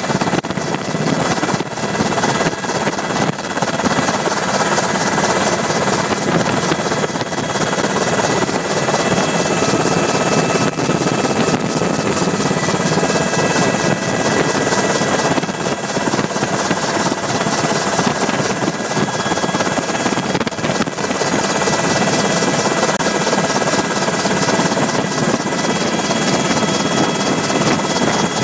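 UH-60 Black Hawk helicopter in flight, heard from on board: a loud, steady rush of rotor and twin turboshaft engine noise with several steady high whining tones over it.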